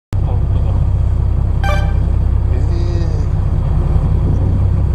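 A boat's engine running steadily, a constant low rumble heard from inside the cabin.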